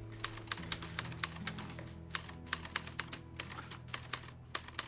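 Manual typewriter keys being struck in an uneven run of sharp clicks, several a second, over a soft held low music chord.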